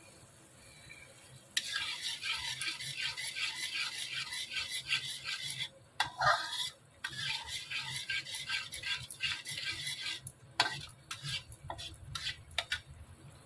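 Steel spoon stirring and scraping thick masala paste around a metal kadhai as it is fried, a rhythmic scraping in two long runs. Near the end come a few sharp metallic clicks.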